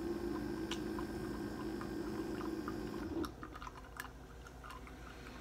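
Sipping and swallowing coffee from a glass mug, with a low steady hum that stops about three seconds in and a few light clicks after it.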